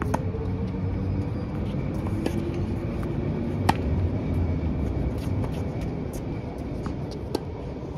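Tennis balls struck by rackets: sharp pops of groundstrokes in a rally, the loudest about halfway through, others just after the start and near the end, with fainter hits from farther off. A steady low rumble of road traffic lies underneath.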